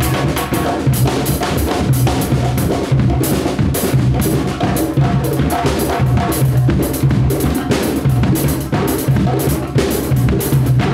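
Uruguayan candombe tambores, struck with stick and bare hand, playing a dense candombe rhythm together with a drum kit, with deep booming drum tones and frequent cymbal crashes.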